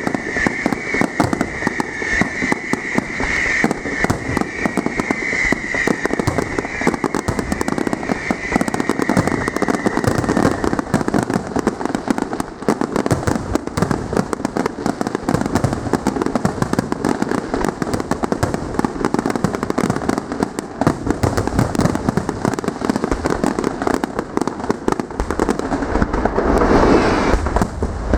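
Fireworks display going off: a dense, continuous run of bangs and crackling. A high whistle sounds through the first ten seconds or so, and heavier booms build near the end.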